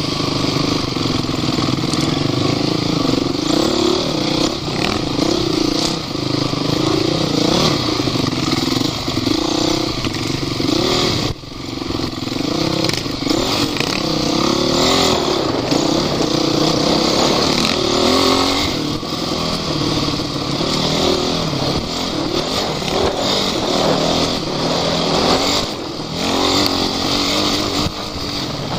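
Off-road vehicle's engine running hard, its revs rising and falling continuously as it is driven over rough terrain, with a brief drop in power about eleven seconds in.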